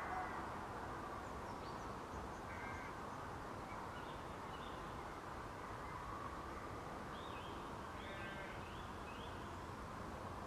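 Song thrush singing at dusk: short, scattered whistled phrases, then a quick run of repeated phrases in the second half, with a couple of lower, harsher notes, over a steady background rush.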